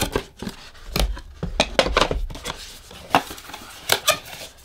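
An empty cardboard box being lifted and handled, giving a run of sharp knocks and taps of cardboard on cardboard, with the loudest knocks about a second in and near the end.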